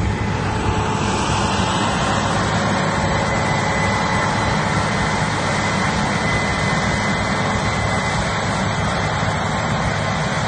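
Case IH Axial-Flow 9240 combine harvester running steadily while harvesting: a dense, even engine and threshing rumble with faint steady high whines over it.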